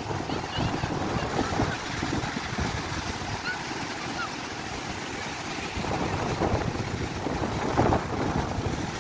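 Rough sea surf breaking and washing over a rocky shore, with wind buffeting the microphone in irregular gusts.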